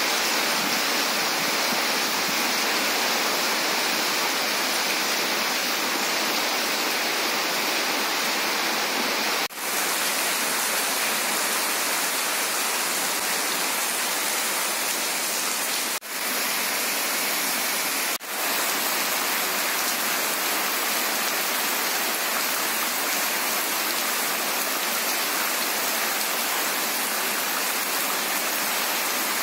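Heavy rain pouring down steadily, an even hiss of downpour. The sound dips briefly three times.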